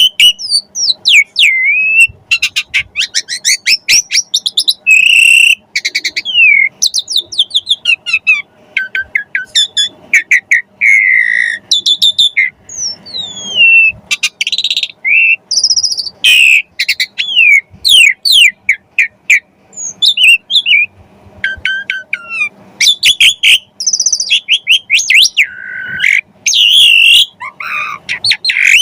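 Pied starling (jalak suren) singing without pause: a busy, varied string of loud whistles, fast chattering trills and rising and falling sweeps, full of mimicked phrases, the 'full isian' song that keepers play to set other starlings singing.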